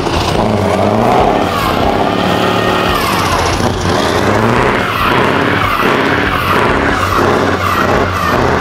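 Scania R500 truck's V8 diesel held at high revs through a burnout, loud, its pitch wavering up and down, with the rear tyres spinning and squealing.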